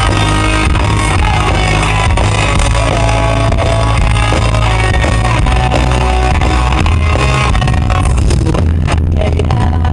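Live pop-punk band playing a song loud, heard from within the crowd: electric guitars, drums and heavy, booming bass.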